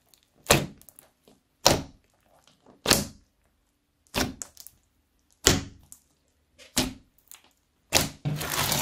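Fingertips pressing into a thick slime studded with small beads, each press giving a sharp pop, seven in all at about one every second and a bit. Near the end comes a longer, rougher squish as the slime is worked.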